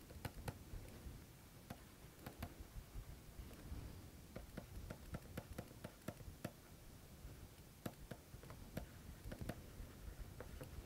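Faint, irregular ticks and taps of a stylus writing on a tablet screen, over low background hum.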